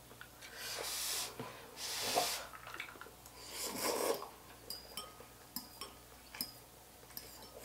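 Slurping of instant noodles and broth, three noisy sucks in the first half, followed by light clicks of cutlery against a bowl.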